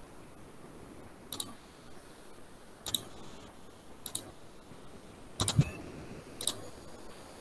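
Scattered sharp clicks from someone working a computer, roughly one every second or so. The loudest is a quick cluster with a dull low knock about five and a half seconds in.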